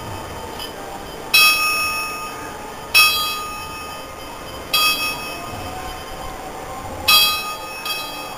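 Worship bell struck four times, each stroke ringing out and dying away, with a lighter fifth stroke near the end; the strokes come roughly one and a half to two and a half seconds apart.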